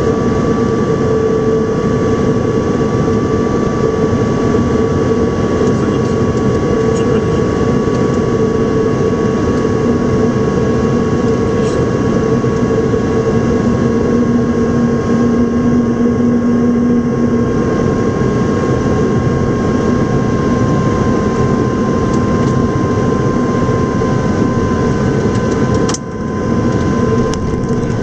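Cockpit noise of the An-225 Mriya on final approach: a steady rush of airflow and engine noise from its six Progress D-18T turbofans, with several whining tones that drift slowly lower in pitch. The level dips briefly about two seconds before the end.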